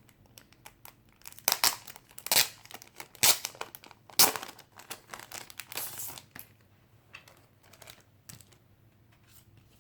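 Packaging crinkling and crackling in the hands as a pop-up box is opened, in a quick run of sharp crackles that thins out and grows quieter after about six seconds.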